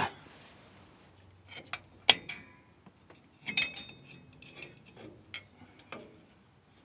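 Scattered metal clinks and taps as rear drum brake shoes and their hardware are fitted onto the backing plate of a 1976 Ford F-150, with one sharp, briefly ringing clink about two seconds in.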